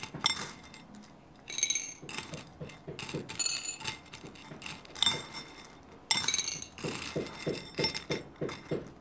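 Chopsticks clicking against a glass bowl of dried corn kernels, with sharp ringing clinks now and then. Under them, hammering on the floor above sends a run of knocks, which settle into about four a second from about two-thirds of the way in.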